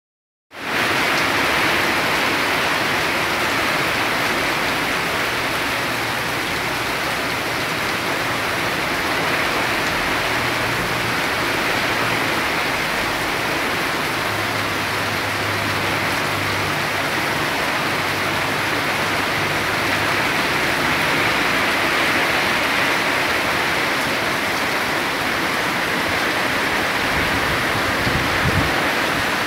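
Heavy rain pouring down in a steady, dense hiss, starting abruptly about half a second in.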